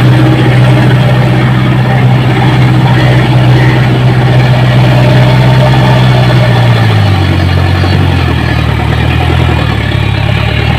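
Preet 6049 tractor's diesel engine running steadily while it pulls a tillage implement through the soil; its note drops to a lower pitch about seven seconds in.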